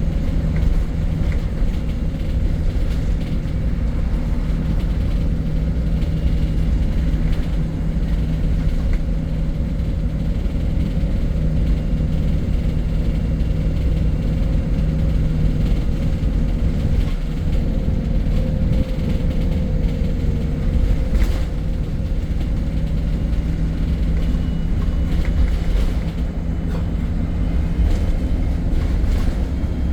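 MAN single-deck bus running steadily, a constant engine drone over a low rumble, with a few brief clicks and rattles.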